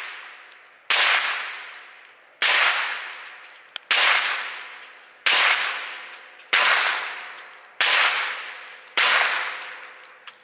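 Ruger 10/22 rifle firing .22 LR rounds into bulletproof glass: seven sharp shots at a steady pace, roughly one and a quarter seconds apart, each followed by a long fading echo.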